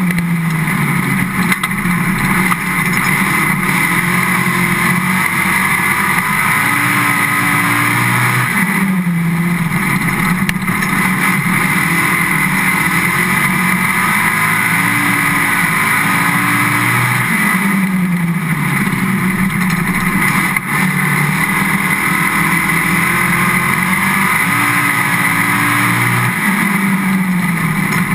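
Race car engine heard from inside the car, running hard on a dirt oval. Its pitch drops and climbs back about every nine seconds as it goes through the corners and back onto the straights.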